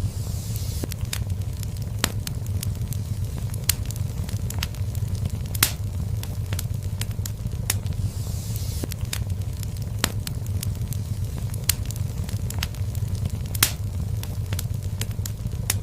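Fireplace fire crackling, with frequent sharp pops over a steady low rumble. A soft hiss rises briefly near the start and again about halfway through.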